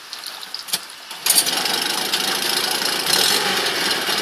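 2002 Honda BF6 four-stroke outboard motor: its sound falls low for about a second, then comes back abruptly and runs on steadily.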